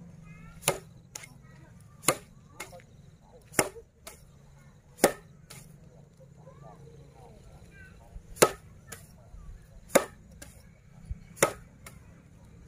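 Bundles of dried broom grass (tiger grass) being swung and beaten down against the ground, which knocks out the loose seed and chaff. Seven sharp slaps, about one every one and a half seconds with a pause of about three seconds midway, and lighter swishes and taps between them.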